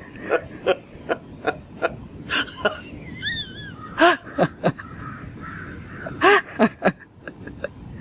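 Elderly woman laughing heartily in a run of short, rapid bursts, with louder whoops of laughter about four and six seconds in.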